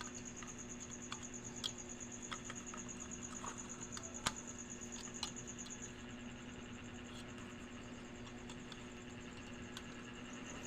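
Scattered small clicks and taps from handling the lamp bulb and tools, over a steady high insect trill that fades about six seconds in and a steady low hum.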